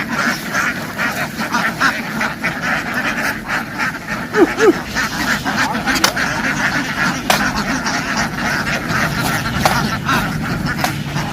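A large flock of domestic ducks quacking all together, a dense, continuous din of overlapping calls, with a couple of brief louder calls about four seconds in.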